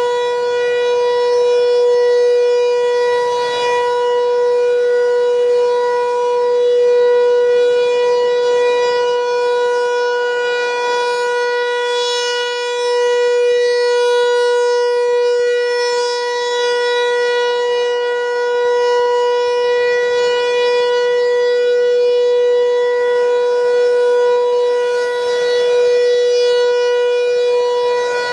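Federal Signal 508 outdoor warning siren sounding a steady single tone at full speed during a test. The pitch holds level, while the loudness swells and fades about every four seconds.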